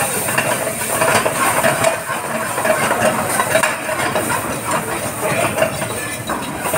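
Onion-tomato masala sizzling in a hot steel pan just after a splash of water, stirred with a steel ladle. The water went in because the masala had started to burn.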